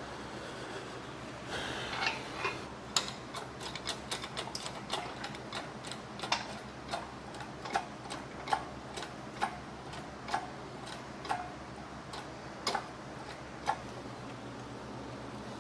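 Work on steel parts: a short scrape, then a string of sharp metallic clicks, quick and irregular at first, then slowing to about one a second and stopping near the end.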